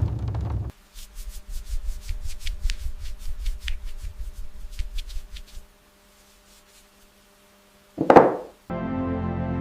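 Irregular rubbing and scraping with small clicks over a low machine hum, then a couple of seconds of near silence, a short loud whoosh, and background music starting near the end.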